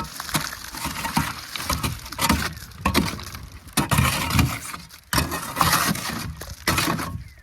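Wet concrete slopping and sliding out of a tipped wheelbarrow into a footing hole, with irregular scraping and splatting.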